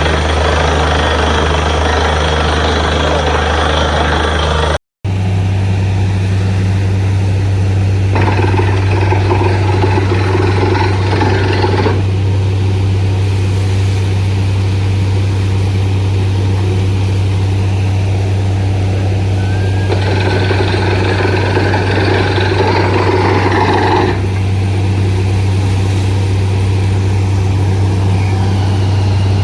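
Borewell drilling machine running with a steady, deep hum. A harsher noise joins it for about four seconds twice, about eight seconds in and again about twenty seconds in. The sound cuts out for an instant about five seconds in.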